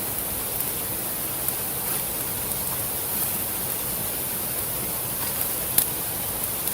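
Wood campfire burning: a few scattered sharp crackles and pops over a steady rushing hiss.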